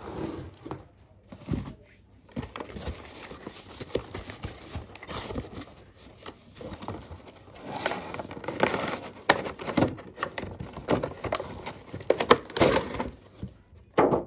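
Cardboard box flaps being pulled open and handled, with the crinkle of the plastic packaging inside. It is an irregular rustling and crackling with sharp clicks, louder in the second half, and a sharp knock just before the end.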